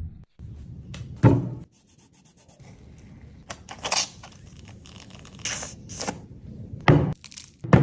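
Scraping and rubbing sounds from handling food, with several short sharp strokes, the loudest about a second in, near four seconds and about seven seconds in.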